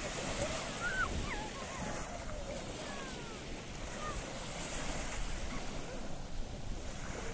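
Small waves breaking and washing up on a sandy shore, a steady rushing of surf.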